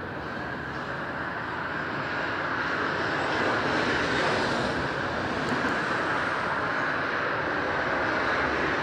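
Steady rush of motorway traffic, cars and lorries passing, swelling slightly about three seconds in.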